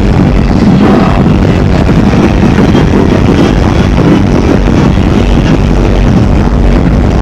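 Bass-heavy music blasting from a van's car-audio system of many subwoofers, so loud that it overloads the microphone into a steady, distorted rumble.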